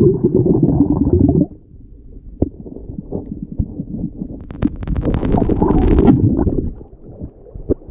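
Muffled underwater rumbling heard through a submerged action camera: two loud low stretches, one at the start lasting about a second and a half and another from about five to six and a half seconds in, with quieter crackle and a quick cluster of sharp clicks between them.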